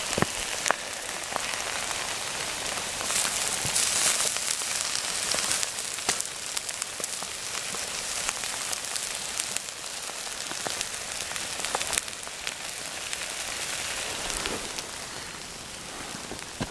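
Burnt BMW plastic motorcycle side case still smouldering: a steady hiss with frequent small crackles and pops.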